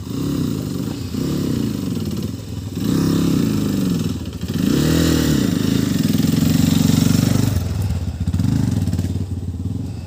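Motorcycle engine running while riding, its pitch rising and falling several times with the throttle. It holds steady for a couple of seconds past the middle, then drops lower.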